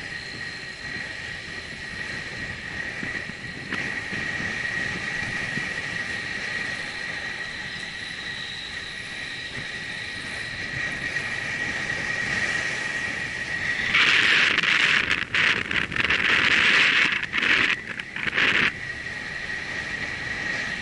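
Riding noise of a bicycle rolling along a paved path at about 20 km/h: wind rushing past the camera microphone over a steady high whine. For about five seconds near the end a much louder hissing rush cuts in and out several times.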